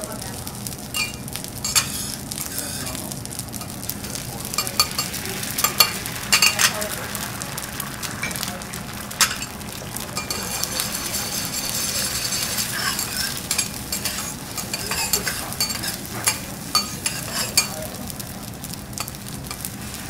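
Food sizzling on a hot teppanyaki griddle, with metal spatulas tapping and scraping against the steel plate in frequent sharp clicks.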